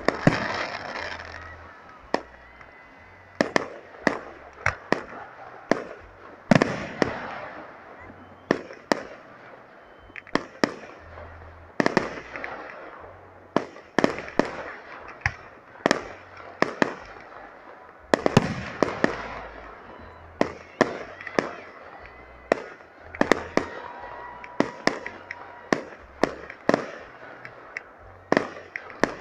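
Fireworks display: aerial shells bursting in a steady series of sharp bangs, about one or two a second, some followed by a spell of crackling.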